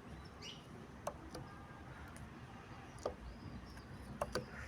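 A few faint, sharp metallic clicks as a worn connecting rod on a Ford Zetec Rocam 1.0 engine is rocked by hand on its crankshaft journal. Several come near the end. The loose play is a sign of heavy bottom-end wear, which the mechanic blames on the engine running without oil.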